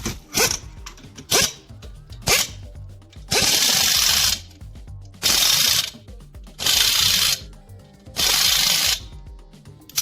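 Impact wrench on wheel nuts: three short blips, then four bursts of about a second each with pauses between.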